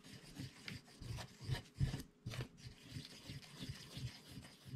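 A knife stirring and scraping Bondo body filler into its red cream hardener on a mixing board: a run of short, uneven scraping strokes, about two to three a second.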